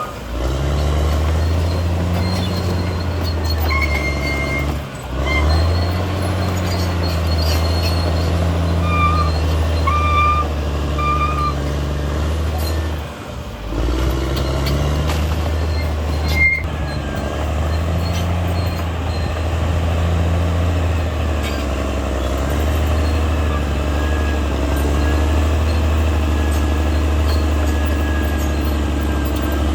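Caterpillar D6R XL bulldozer's diesel engine running steadily under load, with a deep hum that dips briefly twice. Several short high squeaks come in the first half, and there is one sharp knock about halfway through.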